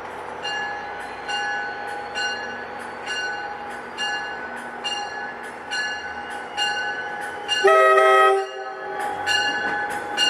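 NJ Transit commuter train arriving cab-car first, with a bell ringing about twice a second. About seven and a half seconds in, the cab car's horn gives one loud blast, a chord of several notes, lasting about a second.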